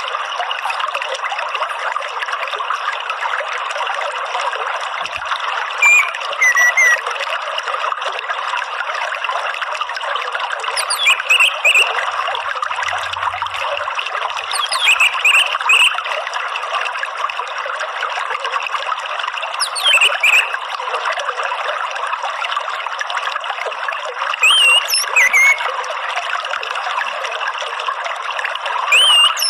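Steady trickle of running water, with short chirping calls of an orange-headed thrush (anis merah) about every four to five seconds. Each call is a quick pair of falling, whistled notes.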